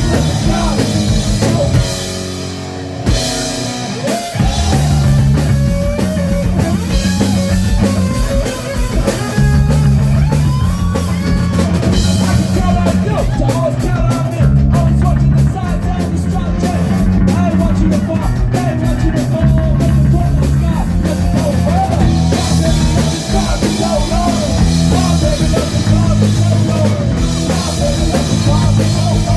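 Live rock band playing, with drum kit, a moving bass line and electric guitar. The band thins out and drops in level about two seconds in, then comes back in full about four seconds in.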